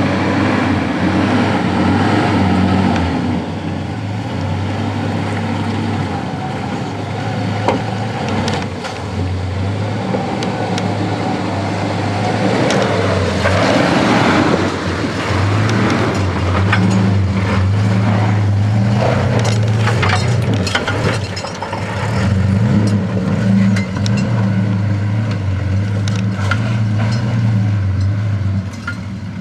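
Toyota 80 Series LandCruiser engine working hard up a steep rutted dirt climb, the revs dropping and picking up again. There is a louder rush of engine and tyre noise about halfway through, and scattered knocks.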